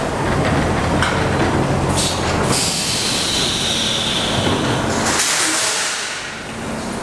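Vintage New York subway train of R17, R33 and R36 cars rolling slowly along an elevated track with a steady low rumble. A loud hiss comes from the train from about two seconds in and stops about six seconds in.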